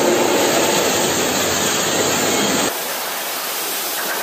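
Gas-shielded arc welding on a steel girder seam: a loud, dense, steady hiss that cuts off abruptly about two and a half seconds in, leaving a quieter steady hiss.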